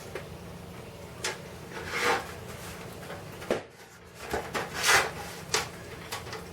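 Irregular knocks and scrapes of hands working on a clock case, prying the glass to slide it out of its frame, with two longer scrapes among short knocks.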